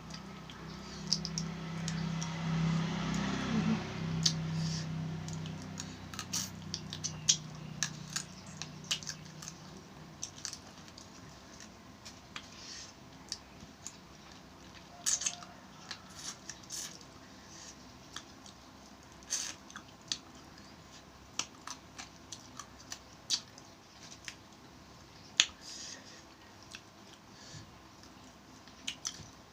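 Eating seafood: crab shell cracking and crunching in the mouth and hands, as irregular sharp clicks and snaps, with chewing. A low steady hum runs under the first several seconds and fades away.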